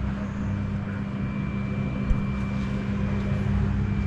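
A steady low machine hum with a faint high whine above it.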